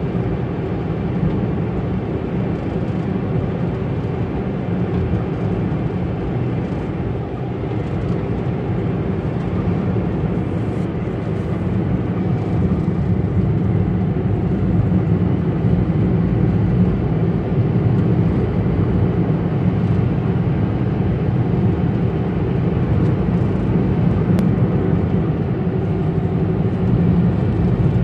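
Steady low drone of a moving car heard from inside the cabin: engine and road noise, growing a little louder about twelve seconds in.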